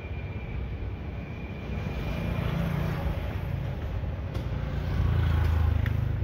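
Low rumble of motor vehicles passing, swelling twice and loudest near the end, with a few light clicks in the second half as the welder's steel chassis is handled.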